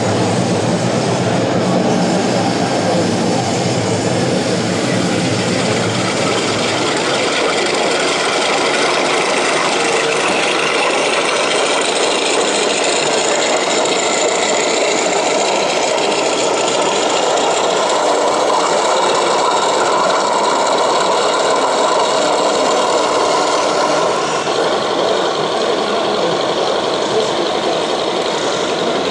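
1/16-scale RC model tanks running: a steady mechanical drone from their electric drive and simulated engine sound units. A deeper rumble drops away about seven seconds in.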